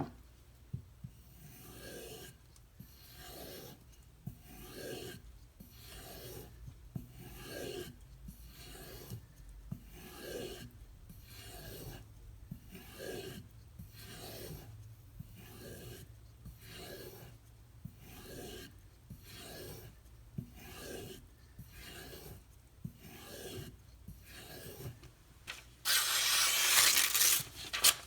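Spyderco Delica's SG2 steel blade being stroked along a DLT strop loaded with white compound, in a regular rhythm of short rubbing strokes a little more than one a second. This is the final polishing stage of the edge. Near the end there is a louder, hissing rub lasting about two seconds.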